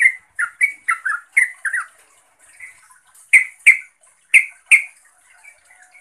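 Yellow-vented bulbul (trucukan) calling. A quick run of short chirping notes, a brief lull, then four loud, sharp notes in two pairs about a second apart, trailing off into soft chatter: a call to a rival or companion.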